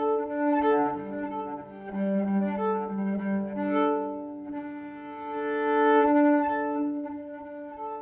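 Solo cello bowed in long sustained notes, one note held steady beneath changing notes: an instrumental introduction before the singing begins.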